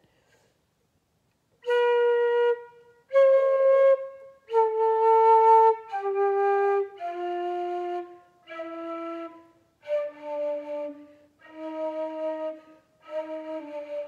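Flute played by someone who hasn't touched it in about twenty years: after a couple of seconds of quiet, a slow run of separate held notes with short breaks for breath between them, stepping mostly downward like a scale.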